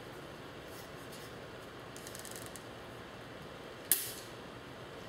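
Small parts of an old typewriter being handled during disassembly: light scraping, then one sharp click about four seconds in, over a steady background hum.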